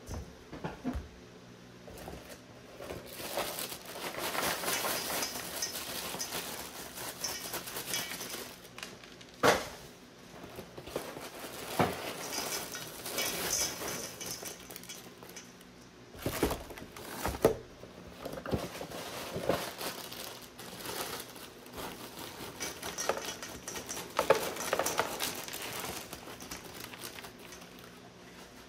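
Dry cereal pouring from plastic liner bags into a stainless steel mixing bowl, pattering against the metal, with the plastic bags crinkling. Several sharp knocks stand out, about five across the stretch.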